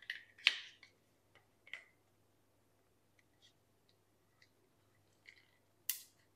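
Hand-held plastic pipe cutter clicking as it is set on polybutylene push-fit pipe and squeezed: a few sharp clicks in the first two seconds, faint ticks, then a louder click near the end.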